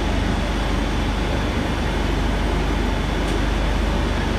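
Madrid Metro train running, heard from inside the carriage: a steady low rumble with an even rushing noise over it.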